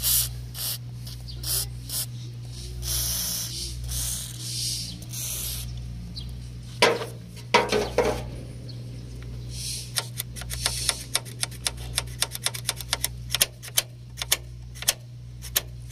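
Short bursts of WD-40 aerosol spray hissing onto a rusty hood latch, followed from about ten seconds in by many rapid metallic clicks as the freshly lubricated latch is worked back and forth, over a steady low hum.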